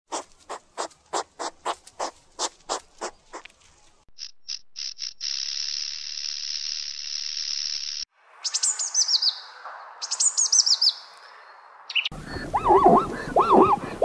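A run of short animal sound clips: first about a dozen quick puffs from a hedgehog, then a high steady trill, then bursts of rapid falling chirps with a red squirrel. Near the end a zebra's barking calls begin, rising and falling in pitch.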